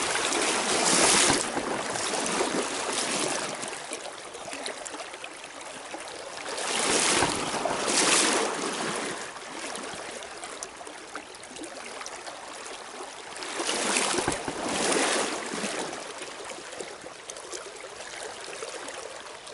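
Shallow river current rushing and rippling over stones, with a few louder swells of rushing noise, about a second in, around the middle and past two-thirds of the way.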